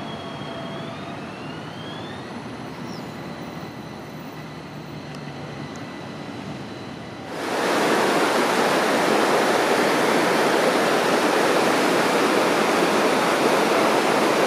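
An AnsaldoBreda Sirio tram rolling through a curve, its wheels squealing faintly in gliding high tones. About seven seconds in this gives way abruptly to a loud, steady rushing hiss.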